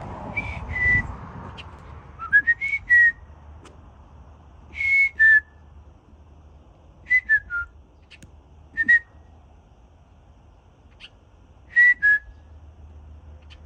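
Short, clear whistled notes, mostly in twos and threes that step down in pitch, come in six brief groups spaced a second or more apart.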